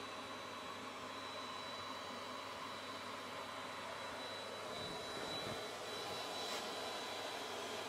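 Bee vacuum running steadily: a constant whoosh with a thin high whine, and a few soft knocks about five seconds in.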